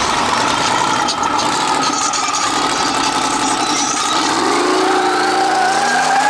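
A car engine running loudly, then revving up in the last two seconds with its pitch rising.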